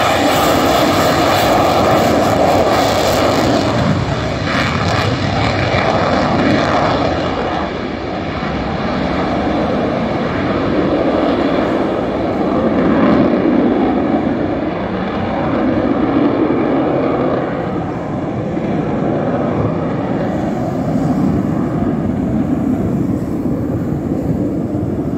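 Eurofighter Typhoon's twin EJ200 turbofan engines at takeoff power, a loud jet roar. The high hiss dies away after about four seconds, leaving a rumble that rises and falls.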